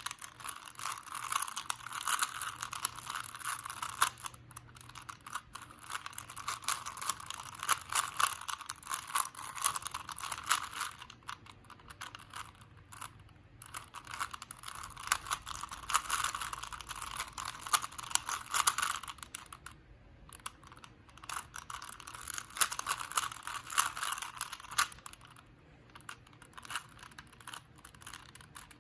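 Rubik's cube being turned by hand: rapid plastic clicking of its layers twisting, in long runs with a few brief pauses.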